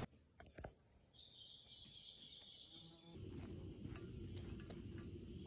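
Faint outdoor forest ambience: a high, buzzing call lasts about two seconds, then low background noise with a few faint clicks.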